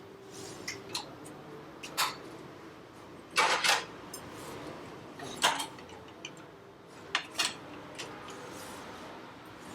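Metal tools and parts clinking and clanking in irregular knocks, the loudest a short cluster about three and a half seconds in and another about five and a half seconds in.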